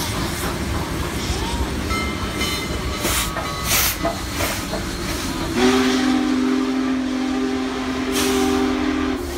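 Union Pacific steam double-header of Big Boy 4014 and 4-8-4 No. 844 passing close by: a steady rumble from the wheels and running gear, with several sharp bursts of steam hiss. From about halfway in, a steam chime whistle sounds a low chord for about three and a half seconds.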